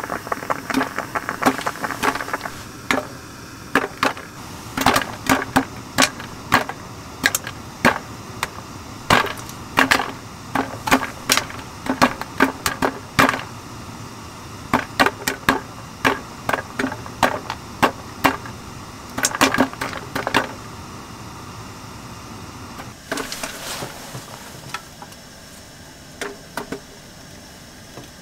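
Irregular sharp crackles and ticks from a metal mess tin heating on a small camping stove, thick at first and thinning out later. A short rustle comes late on.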